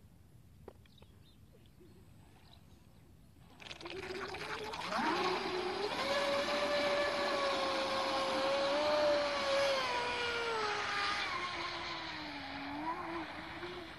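Electric radio-controlled speedboat (Genesis, on a 6S LiPo pack) launching into a run: about four seconds in, a sudden rush of water and a motor whine that climbs quickly in pitch, holds steady at full speed, then slowly falls and wavers as the boat runs off across the lake.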